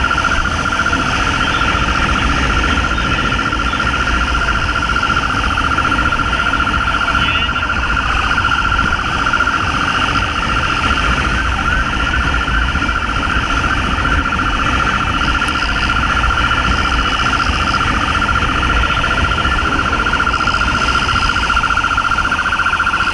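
Police motorcycle siren sounding a fast-pulsing high tone that holds one pitch throughout, over the rumble of the motorcycle's engine and wind noise at speed.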